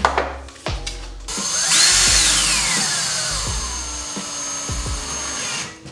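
Power drill driving a screw through a plastic wall storage panel into the wall. A few short blips come first, then a long run whose motor whine rises and then falls steadily in pitch as the screw draws tight.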